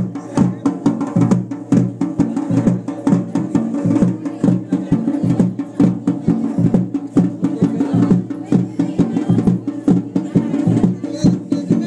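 Traditional Garhwali Pandav Nritya drumming, likely dhol and damau, played in a rapid, unbroken beat over a steady held tone.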